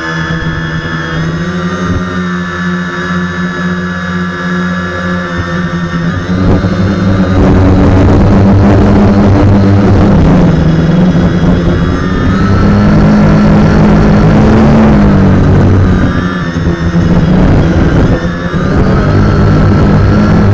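Quadcopter's electric motors and propellers buzzing in flight, heard from the camera on the airframe, the pitch shifting up and down as the throttle changes. It gets louder from about seven seconds in.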